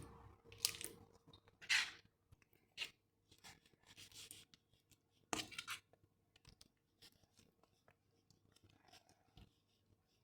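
Glue slime activated with Elmer's Magic Liquid being squished and stretched, giving faint, irregular sticky crackles and squelches, the loudest a second or so apart in the first half.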